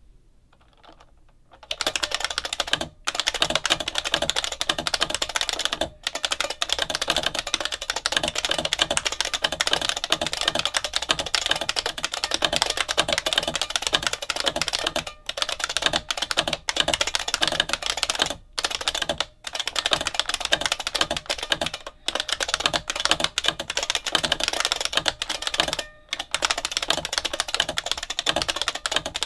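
Fast touch-typing on an IBM PC AT Model F keyboard: a dense, continuous stream of clicks from its capacitive buckling-spring key switches, with the resonant, metallic ping of the springs. The typing starts about two seconds in and halts briefly a few times.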